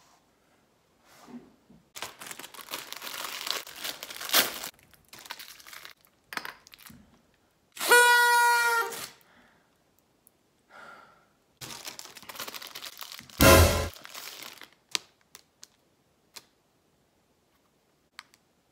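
Crinkling of foil party items, then a paper party blower tooted once for about a second: a steady buzzy kazoo-like tone. A second short, loud noise comes about two-thirds of the way through.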